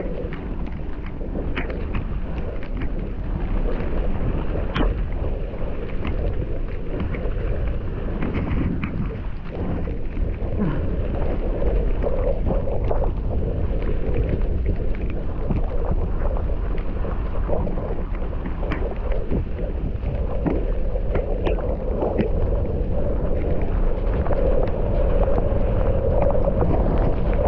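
Mountain bike riding down a dirt trail, heard through an action camera: wind buffeting the microphone over the rolling noise of the tyres, with frequent sharp clatters and knocks from the bike over rough ground. The noise grows louder through the second half.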